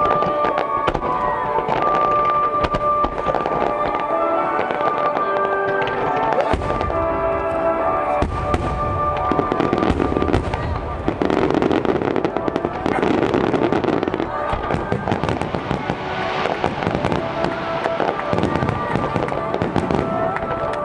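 Fireworks display: many shells bursting and crackling in quick succession, with deep booms growing heavier from about a third of the way in, over music played on loudspeakers.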